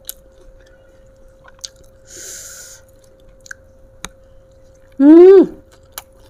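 A person eating up close: wet mouth clicks and chewing, with a short breathy hiss about two seconds in. Near the end comes a loud, brief voiced "mmm" that rises and then falls in pitch.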